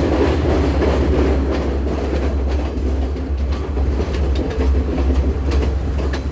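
Train running along the track: a steady low rumble with irregular clicks and knocks from the wheels over the rails.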